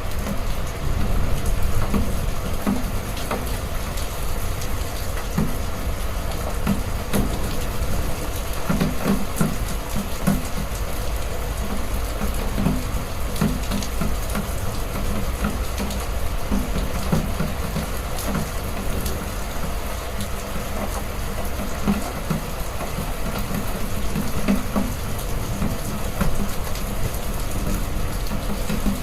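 Heavy rain falling steadily, with a constant low rumble underneath and scattered patters of drops.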